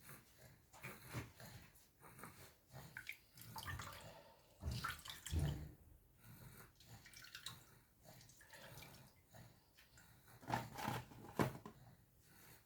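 Kitchen handling sounds: liquid dripping and splashing, with scattered small clicks and a few louder knocks of containers or utensils about five seconds in and near the end.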